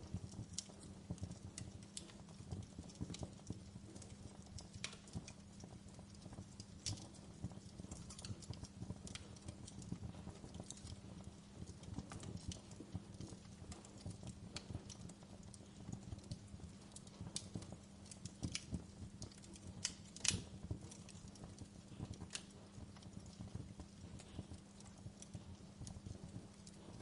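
Wood fire crackling in a fireplace: irregular small pops and snaps over a low steady rumble, with one louder pop about twenty seconds in.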